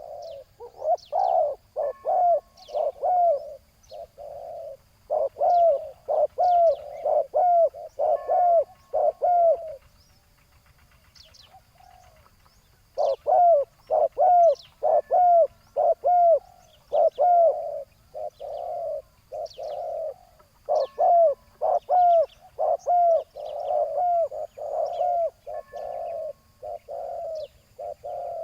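Spotted doves cooing over and over in runs of short notes, with a lull a little after a third of the way in. Small birds chirp faintly and high in the background.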